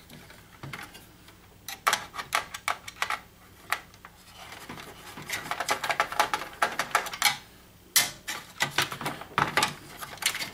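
Irregular clicks, light knocks and rattles of plastic parts and wiring being handled inside an opened projector's plastic housing during teardown, with a few sharper knocks among them.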